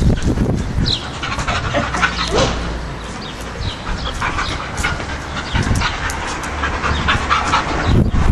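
Two dogs, a Siberian husky and a German Shepherd mix, play-wrestling at close range, panting and scuffling, with many short scrabbling clicks through the second half.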